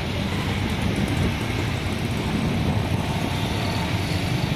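Steady low rumble of a jet airliner climbing away after takeoff, heard from far off and mixed with road traffic noise.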